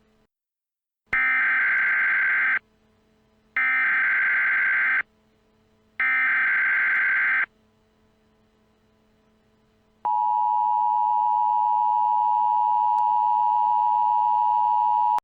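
Emergency Alert System tones: three identical screeching SAME digital header bursts, each about a second and a half long with short gaps, then about ten seconds in a steady two-tone EAS attention signal that begins and holds.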